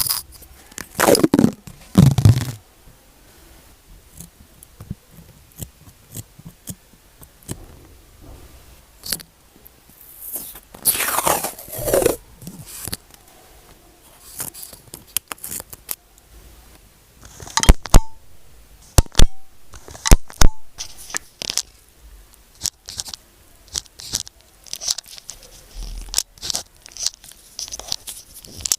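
Close-up paper and pen sounds from writing on sticky notes. There are two long tearing swishes that fall in pitch, about a second in and again about eleven seconds in, and a few sharp clicks around eighteen to twenty seconds. After that come many short, scratchy pen strokes on paper.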